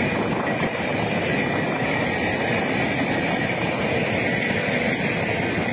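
Passenger coaches of a diesel-hauled intercity express train rolling past at speed: a steady loud rumble and rattle of wheels on the rails, with a steady high whine above it.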